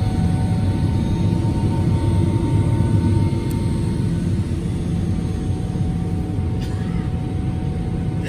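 Steady low drone of cabin noise inside a Boeing 777-300ER in flight, from its GE90 jet engines and the air rushing past the fuselage, with a faint steady tone above it.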